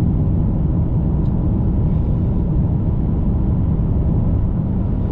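Car driving at road speed, with steady road and engine rumble heard inside the cabin.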